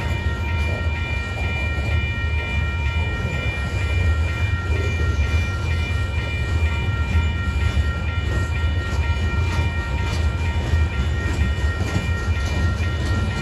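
Covered hopper cars of a grain train rolling past close by: a steady heavy rumble of wheels on rail, with thin steady ringing tones above it and a few clicks in the second half.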